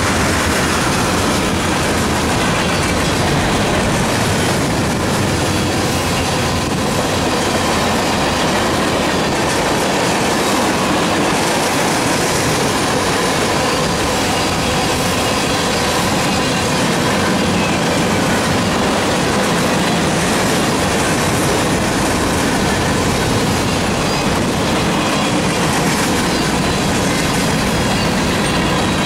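A freight train's tank cars and boxcars rolling past close by: steel wheels running and clattering on the rails, a steady unbroken rolling noise, with a faint steady squeal on top.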